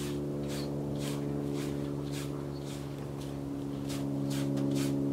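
Bristle paint brush rasping across a wet canvas in short strokes, about two a second, over a steady low mechanical hum.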